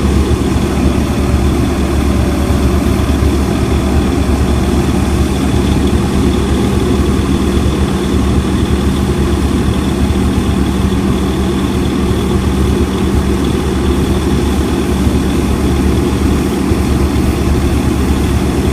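Heavy diesel engine idling steadily close by, a constant low drone that doesn't change in pitch.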